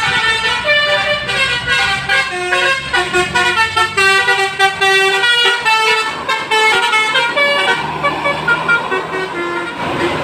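A bus's basuri musical air horn playing a quick tune of short notes that jump up and down in pitch, slowing into a few longer held notes near the end.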